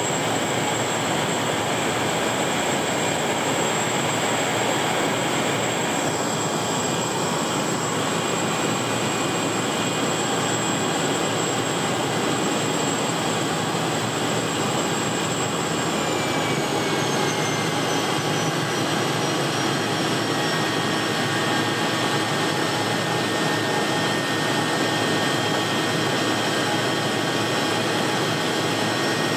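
Single-engine floatplane's engine and propeller running steadily, heard loud from inside the cabin. A high whine over the noise slides down in pitch a little past halfway through.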